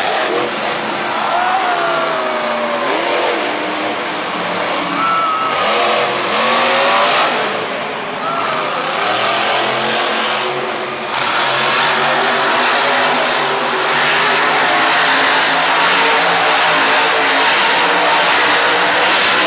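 Monster truck's supercharged V8 engine revving, its pitch rising and falling, over steady crowd noise in a stadium. From about halfway it settles into a louder, steadier run.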